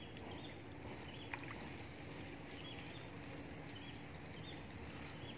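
Faint outdoor ambience at a pond's edge: a steady low background with short, high chirps repeating every second or so, and one sharp click about a second in.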